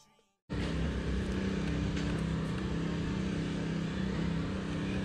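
A steady mechanical hum over a low rumble, starting abruptly about half a second in and holding even throughout.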